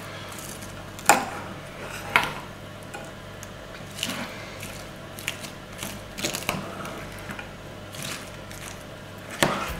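A metal spoon stirring and mashing a soft baked-potato filling in a ceramic bowl: soft squishing with several sharp clinks of the spoon against the bowl, roughly one a second.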